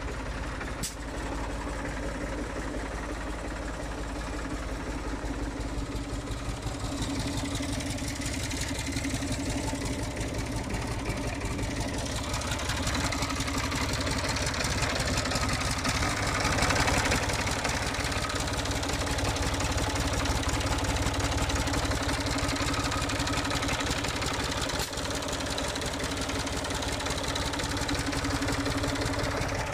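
The diesel engine of a 1985 Štore Fiat 504 tractor idling steadily, with an even run of firing pulses. It is heard louder and brighter from the open engine bay for a while in the middle.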